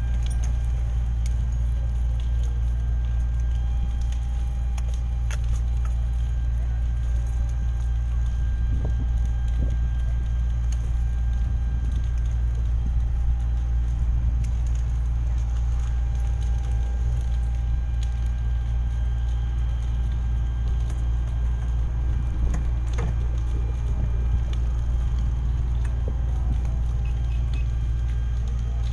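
Steady low drone of fire engines' diesel engines running, with faint steady whining tones above it and scattered faint clicks.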